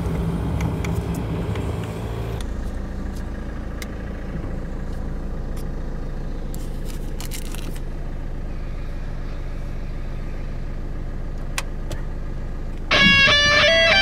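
A car running, heard from inside the cabin as a steady low rumble with a few light clicks. Guitar music comes in suddenly about a second before the end.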